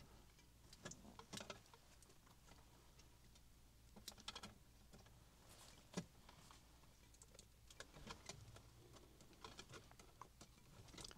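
Mostly near silence, broken by faint, scattered small clicks and ticks of hands working electrical wires and a wire-stripping tool at a switch box, with one sharper click about six seconds in.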